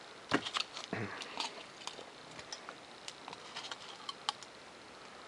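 Scattered light taps, clicks and rustles of thin Depron foam parts being handled and set down on a work table, with a few louder knocks in the first second or so.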